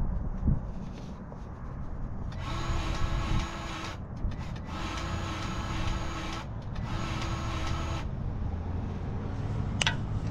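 Battery-powered grease gun whirring in three bursts of one to two seconds as it pumps grease, over a low steady rumble, with a sharp click near the end.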